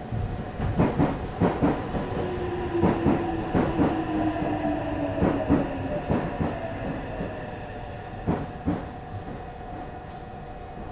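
Meitetsu 300-series electric commuter train heard from on board, its wheels clicking over rail joints and points while a traction-motor whine falls in pitch as the train slows. The clicks thin out about nine seconds in, leaving a steady hum.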